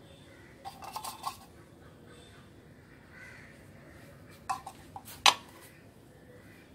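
Small metal tin of screen-printing ink and a spatula clinking: a few light taps and scrapes as ink is scooped out onto the screen, then two sharp knocks near the end, the louder one as the tin is set down on the wooden table.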